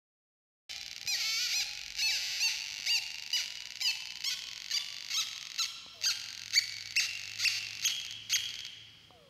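Drawdio graphite-pencil synthesizer sounding through its small speaker: a squeaky electronic tone that starts suddenly under a second in and breaks into a string of short chirps, about two a second, each gliding in pitch. The pitch shifts as the pencil tip and a finger touching the drawn graphite line change the circuit's resistance. It fades out near the end.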